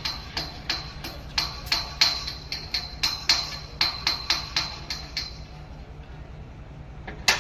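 A hammer striking metal about three times a second, each blow ringing with a bright metallic tone. The strikes stop about five seconds in, and one sharper blow lands near the end, over a steady low hum.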